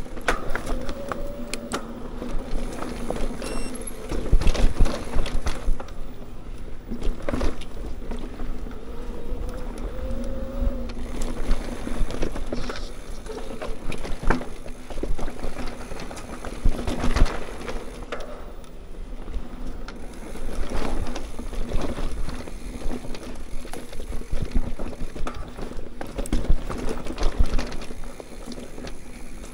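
Mountain bike rolling along a dirt trail: a steady tyre hum that drifts up and down in pitch with speed, with frequent clatters and knocks from the bike over bumps and a low rumble of wind on the microphone.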